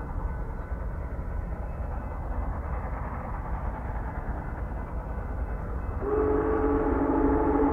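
Union Pacific Big Boy 4014 steam locomotive approaching with a steady low rumble. About six seconds in, its steam whistle starts blowing a long, steady chord of several tones, the loudest sound here.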